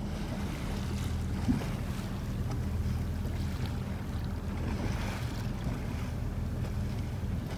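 Motorboat engine running at a steady low hum, heard aboard, with wind buffeting the microphone. There is a single brief knock about a second and a half in.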